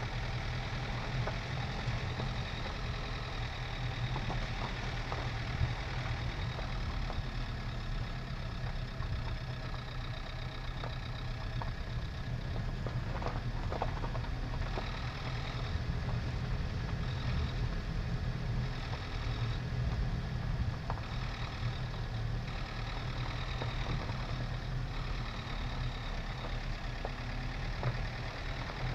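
Dacia Duster's 1.5 dCi four-cylinder turbodiesel running steadily as the car drives along a rutted gravel track, with scattered knocks and rattles from the wheels and suspension over the stones.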